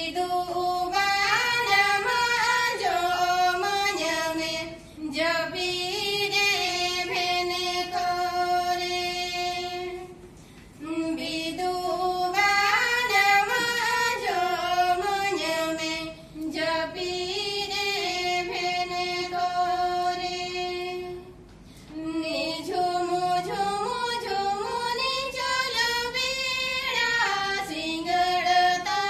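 Two women singing a folk song together without accompaniment, in one melodic line, in phrases of about five to six seconds with short breaks for breath between them.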